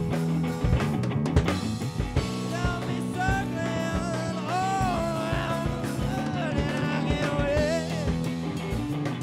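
Band playing live: drum kit and electric guitar, with a high, pitch-bending lead melody coming in about two and a half seconds in and dropping out near the end.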